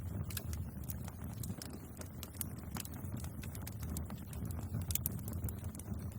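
Wood bonfire crackling: irregular sharp snaps and pops over a low, steady rumble.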